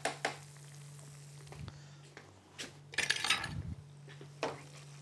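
Metal spoon clinking and scraping against a frying pan and serving plate: a few separate knocks, with a busier run of clinks about three seconds in. A steady low hum runs underneath.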